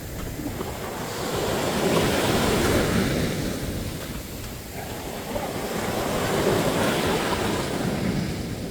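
Sea waves breaking and surf washing up on a beach, a steady rush that swells twice, a few seconds apart.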